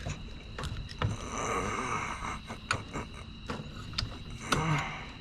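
Scattered clicks and knocks of hand tools and metal parts being handled while a golf cart's starter/generator is taken apart, with faint muffled voices in the middle and near the end.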